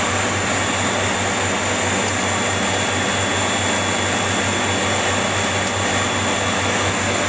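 Electric motor spinning a car alternator through a belt and washing-machine pulley, running with a steady whir and hum.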